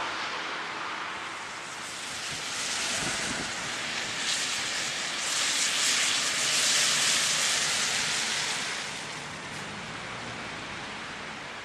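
Outdoor wind and traffic noise in wet snow: a steady hiss that swells to a loud rush in the middle and eases off near the end.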